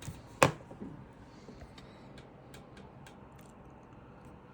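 Small handling clicks: one sharp click about half a second in, a couple of softer knocks just after, then a few faint light ticks.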